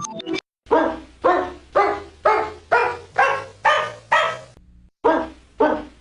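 Dog barking sound effect: a steady run of sharp barks, about two a second, broken by a short pause just before five seconds in before the barking starts again. A snatch of music ends just before the first bark.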